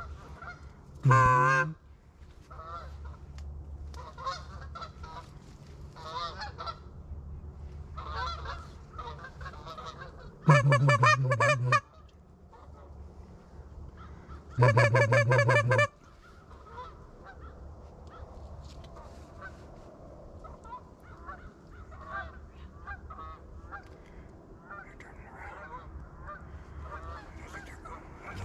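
Geese honking: many faint calls from a flock across the field, with three much louder, drawn-out wavering honks about a second in, at around ten and a half seconds and at around fifteen seconds.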